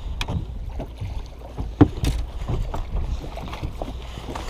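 Wind rumbling on the microphone over water lapping around a small boat, with scattered light knocks and one sharp knock a little under two seconds in.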